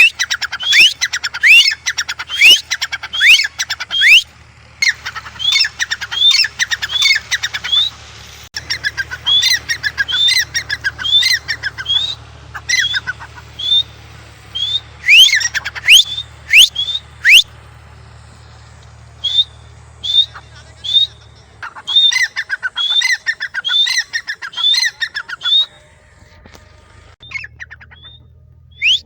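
Francolin (teetar) calling loudly: runs of sharp, upward-sweeping notes repeated several times, broken by short pauses and one longer gap near the end. A faint steady low hum lies under the calls for most of the time.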